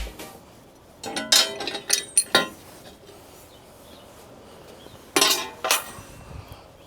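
Sharp metallic clinks and knocks as the mini excavator's cover panels and bolts are handled: a quick run of them about one to two and a half seconds in, then two more about five seconds in.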